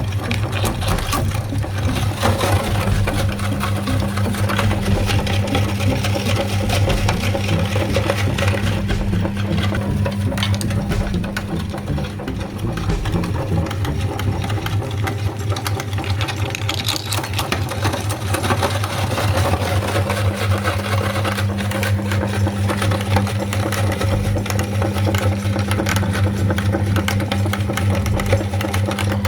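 Electric meat grinder's motor running steadily with a low hum, with rapid fine clicking and crunching over it as candy is ground.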